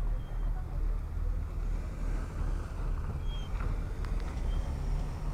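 Thirassia II passenger boat's engine running with a steady low rumble, with a few light clicks about four seconds in.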